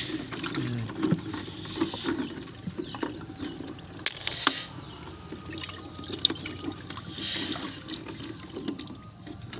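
Water trickling and splashing, with a few sharp knocks.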